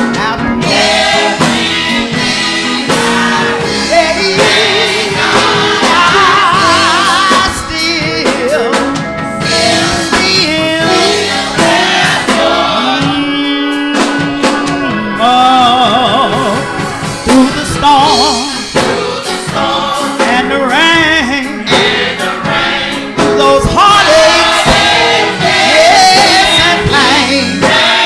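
Gospel song performed live: singers with vibrato over band accompaniment including drums.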